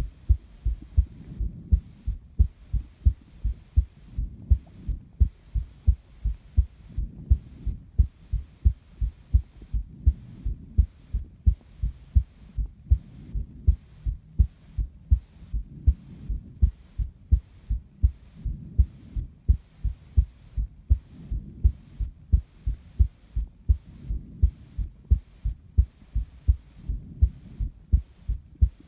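A person's heartbeat recorded close to the chest: a steady, even rhythm of paired low thuds, the lub-dub of each beat. Soft breathing swells in and out every few seconds underneath.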